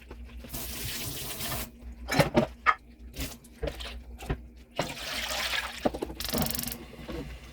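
Kitchen tap running in two short spells, with knocks and clatters of dishes or utensils in between.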